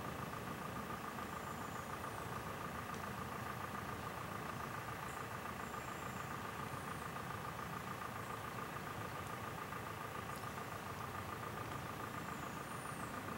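Steady mechanical drone with a constant whine, like an idling engine or running machinery, unchanged throughout. Faint, short high chirps come in now and then above it.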